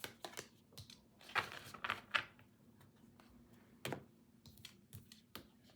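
Tarot cards being shuffled and handled: irregular sharp clicks and short rustling flurries of card edges, busiest in the first half, then a few single snaps.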